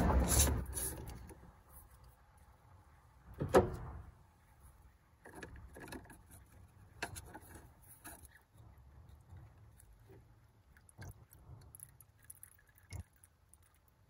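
Clicks and knocks of the 6.4 Powerstroke's top fuel filter cap and the 36 mm socket being handled as the cap is unscrewed and the filter lifted out: one sharp knock about three and a half seconds in, then scattered light clicks and taps.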